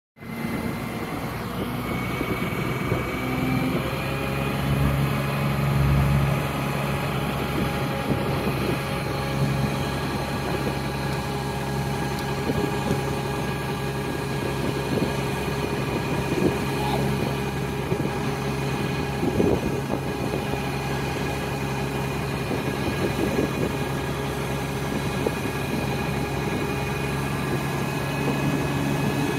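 Diesel power pack of an ADDrive 16-axle self-propelled modular transporter running steadily as the transporter crawls along under a heavy module load. It is a constant engine hum with several steady, higher whining tones above it.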